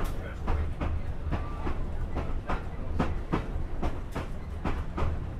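Railcar wheels clicking over rail joints, heard from inside the car: a quick run of sharp knocks, about three a second, over a steady low rumble.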